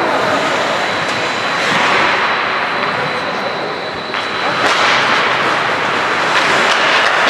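Ice hockey play: skate blades scraping and carving the ice in a steady hiss, with a few sharp knocks of sticks or puck.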